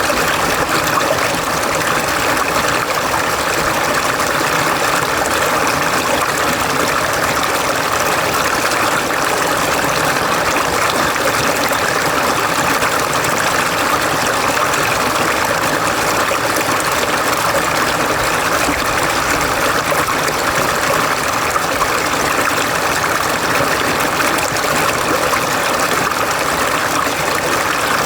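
Mountain stream rushing over rocks in a valley, a steady, continuous water noise without pauses.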